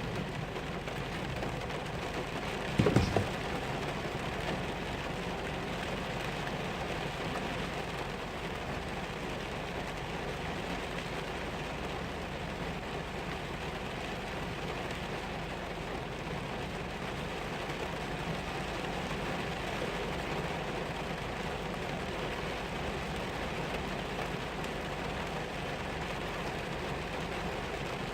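Steady rain falling, with one short loud thump about three seconds in.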